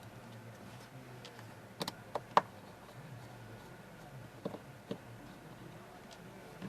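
Scattered light clicks and taps of a Lumia 435 phone and small tools being handled on a repair bench, a few at a time, the sharpest about two and a half seconds in.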